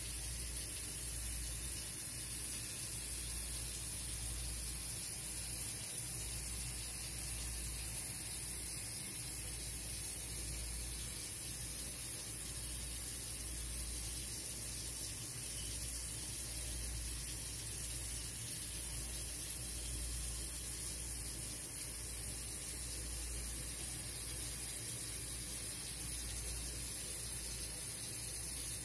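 Steady, even hiss with a low rumble underneath and no distinct events.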